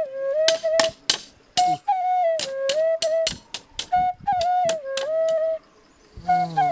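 A flute melody playing as background music over a quick series of sharp knocks from a machete chopping bamboo slats, about three a second; the knocks stop after about five seconds while the flute goes on.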